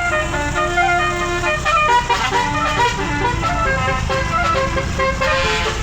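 Basuri 'telolet' multi-tone bus horn playing a quick melody of stepped notes, over the low running of the bus engine.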